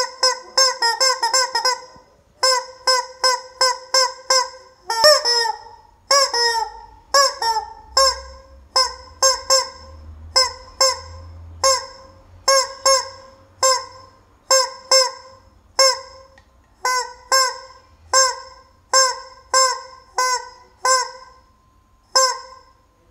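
Rubber chicken squeeze toy squawking over and over: quick runs of short squawks at first, then single honking squawks about one or two a second, stopping near the end.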